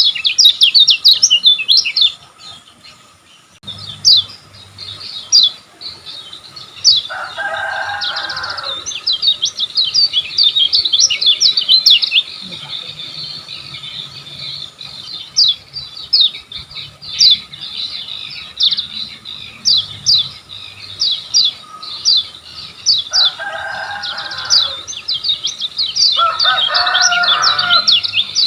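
Kecial kuning (lemon-bellied white-eye) singing a fast, dense run of high chirps. There is a short break near the start, and three times a lower, rougher call joins in.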